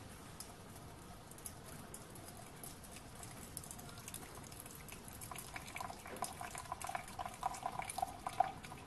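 Thin stream of water trickling from a small copper model-steam-engine boiler into a stainless steel jug. The water is condensate that the boiler caught as a water trap, a sign of very wet steam. Faint at first, the splashing grows louder and more spattery over the last few seconds.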